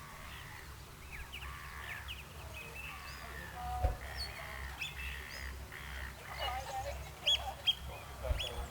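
Birds calling in a busy run of short, repeated, high calls that grow thicker toward the end, over a steady low rumble of harbour ambience. Two brief low thumps come just before the middle and near the end.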